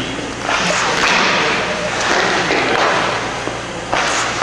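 Ice hockey skates scraping across the ice, then a stick striking a puck for a shot near the end.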